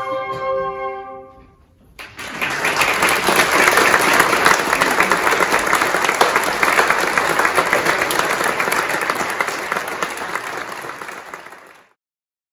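A flute ensemble's final sustained chord dies away in the first second or so. Then the congregation applauds for about ten seconds, and the sound cuts off suddenly.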